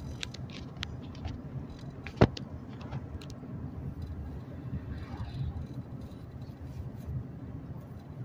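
Car cabin road noise from a moving car: a steady low rumble of tyres and engine, with a single sharp knock a little over two seconds in.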